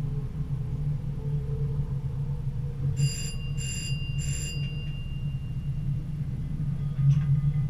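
Level-crossing warning bell ringing three times in quick succession over the steady low drone of a Stadler GTW diesel railcar running along the track. A few clicks and a rise in level come near the end as the train reaches the crossing.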